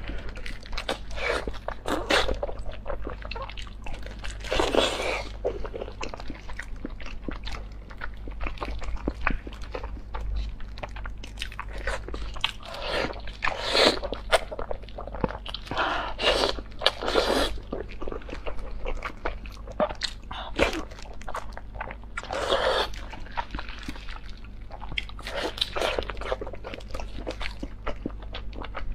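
Close-up eating sounds of braised beef knee bone sped up to double speed: wet biting, chewing and smacking as meat and tendon are gnawed and sucked off the bone, with several louder slurping bursts spread through.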